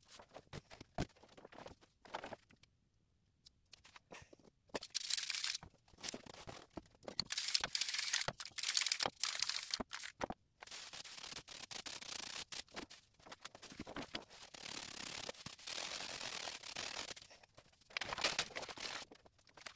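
Aerosol spray paint cans hissing in several bursts, one lasting several seconds, with sharp clicks and knocks in the gaps between them.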